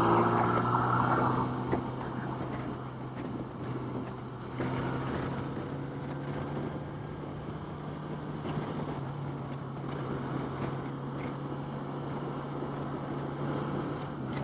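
Motorcycle engine running steadily while cruising along a road, with road and wind noise; the sound is loudest in the first second and a half.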